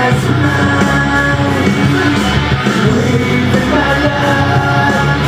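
Rock music with singing, loud and steady.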